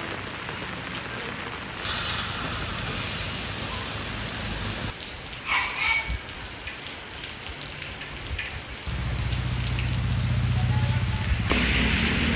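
Steady rainfall, an even hiss of rain on surfaces, with a low steady rumble joining about nine seconds in.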